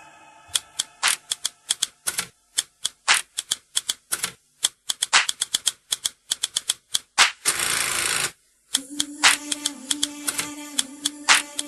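A dance mix over the stage loudspeakers, in a section of rapid, irregular sharp clicks like a typewriter sound effect. About eight seconds in there is a short hiss, followed by a low steady hum under the clicks.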